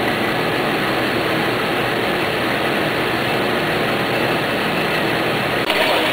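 Steady machine noise from a running Océ ColorStream 3500 continuous-feed inkjet printing line feeding a Lasermax Roll cutter-stacker. Near the end the sound turns brighter and a little louder.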